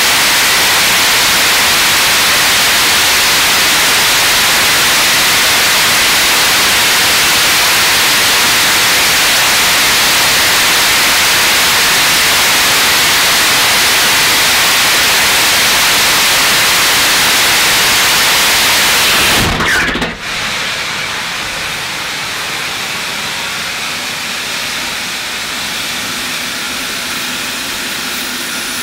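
Launcher E-1 3D-printed, regeneratively cooled liquid-oxygen/kerosene rocket engine firing at full thrust: a loud, steady rushing noise that cuts off suddenly about twenty seconds in as the engine shuts down at the end of its 100-second run. A quieter steady hiss carries on afterwards.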